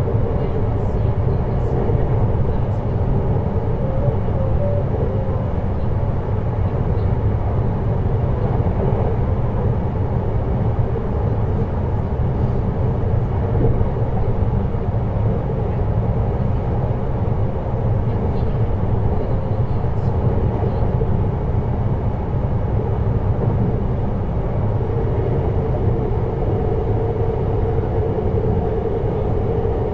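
JR Hokkaido 733 series electric train (motor car MoHa 733-1002) running between stations, heard from inside the car: a steady deep rumble of wheels on rail with a faint motor tone and a few faint clicks.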